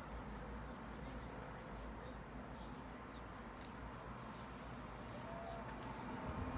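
Steady low background hum and hiss, with a few faint light clicks near the end.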